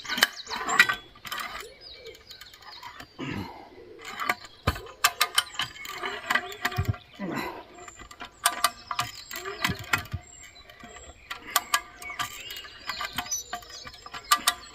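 Hand ratchet cable puller (come-along) clicking in irregular runs as its lever is pumped to pull a tree stump under heavy load. The pawl snaps over the sprocket with each stroke.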